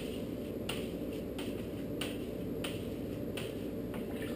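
A long spoon stirring yeast into a bucket of sugar wash to dissolve it, clicking against the bucket wall about once every two-thirds of a second, each click trailed by a short swish of liquid.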